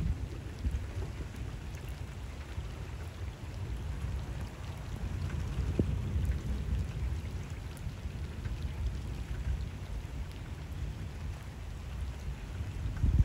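Steady rain falling on canal water, with a few close drops ticking, over a low rumble of thunder that swells about a third of the way in and stays heavy through the middle.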